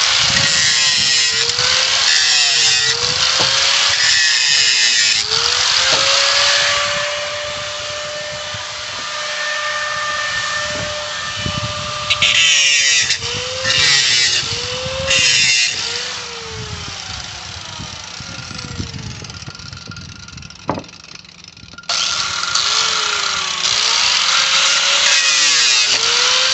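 Angle grinder with a cut-off disc cutting through nails: its whine dips in pitch each time the disc bites into the metal and climbs back between cuts, over a harsh gritty hiss. In the middle it runs free at a steady pitch for several seconds, then drops away briefly about twenty seconds in before cutting again.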